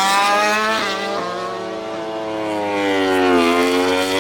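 MotoGP racing motorcycle engine at high revs. Its pitch climbs, breaks briefly about a second in, then sinks steadily and rises again near the end.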